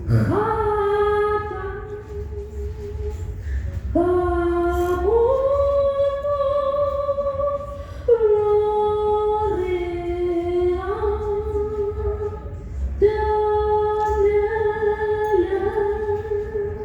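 A woman singing long held notes that step up and down in pitch, in four phrases starting about every four seconds, over a steady low hum.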